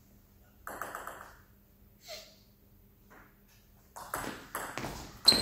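Table tennis ball being played: a few light taps about a second in, then from about four seconds a quick run of sharp clicks as the ball strikes bats and table in a rally, the last near the end the loudest.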